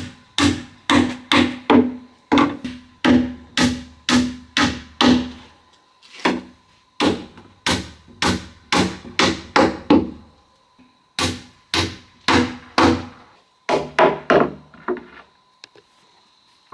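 A hammer striking wood in steady blows, about two a second, in runs separated by short pauses, each blow giving a short woody ring.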